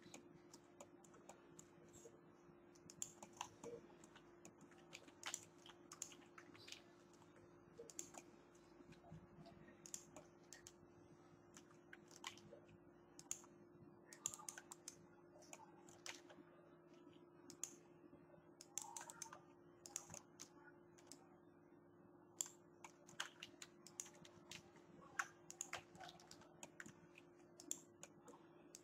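Faint, irregular clicking of a computer mouse and keyboard keys as the mesh is edited, with clicks at uneven intervals, at times a few a second. A low steady hum sits underneath.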